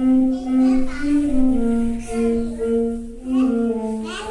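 A man humming a slow tune, one steady held note after another.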